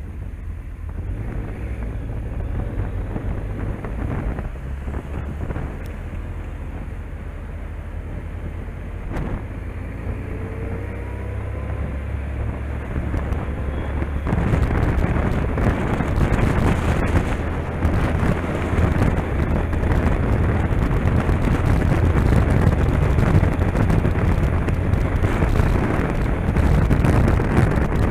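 Motorcycle engine running low in slow city traffic, then the bike picks up speed and wind rushing over the microphone grows much louder about halfway through.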